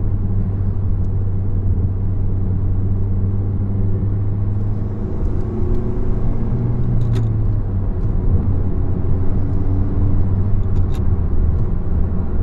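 10th-gen Honda Civic Si's 1.5-litre turbocharged four-cylinder, breathing through a PRL Cobra cold air intake, pulling under throttle in third gear, heard from inside the cabin with the windows up. A steady low drone that rises a little in pitch and loudness about halfway through, with a couple of faint short clicks.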